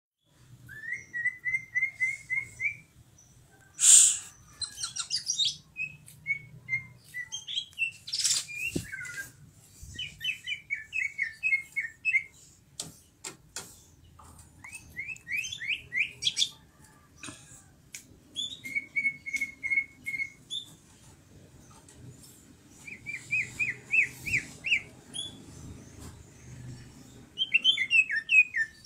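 Green leafbird (cucak ijo) singing loudly and persistently: phrases of rapid repeated whistled notes, broken by short pauses, with two loud harsh bursts at about 4 and 8 seconds.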